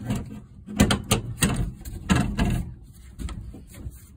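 Milwaukee Packout e-track shelf fittings and plastic mounting plate clacking and knocking against the steel e-track as they are clipped in and handled: a run of sharp knocks, loudest in the first two and a half seconds and fainter after.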